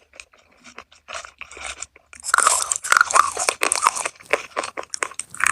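Close-miked eating of crispy food: a few soft mouth clicks, then loud crunching bites and chewing from about two seconds in.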